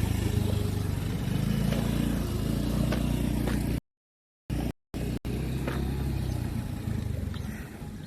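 A motor vehicle engine running with a steady low rumble. The audio cuts out completely for a moment about four seconds in, and again briefly near five seconds.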